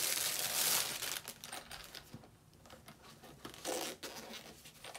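Packaging of a point-and-shoot camera case torn open: a loud tearing rush for about the first second, then quieter rustling and crinkling with a short louder rustle near the end.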